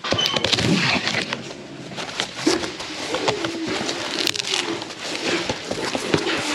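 Packaging rustling and scattered clicks and knocks as metal kit parts are handled and unpacked, with a few short gliding squeak-like tones.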